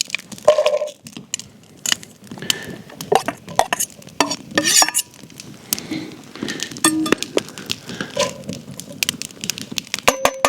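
Chopped vegetables going into a hot, oiled Dutch oven and being stirred, with a steady sizzle under repeated clinks and scrapes of a utensil against the pot and a short metallic ring about seven seconds in.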